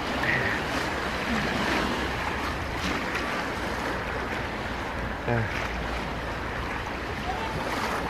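Lehigh River rapids: white water rushing and splashing around a river tube, heard close to the water surface.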